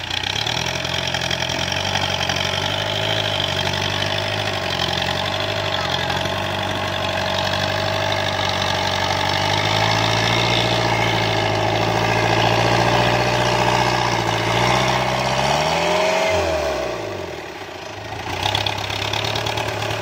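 Engine of a homemade farm tractor-truck hauling a cart loaded with cassava, running steadily with a slightly wavering pitch. About three quarters of the way through, the engine speed drops sharply and then climbs back up.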